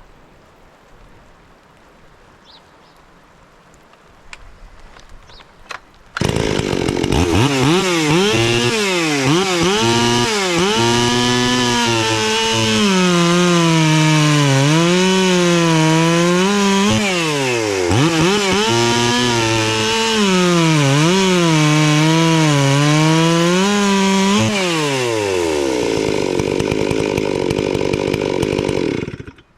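Ported Stihl MS440 chainsaw with a dual-pipe muffler and an HD2 air filter, opening up to full throttle about six seconds in and running loud for over twenty seconds. Its engine pitch dips and recovers again and again as the chain is loaded in a cut. Near the end it holds a steady high rev, then cuts off suddenly.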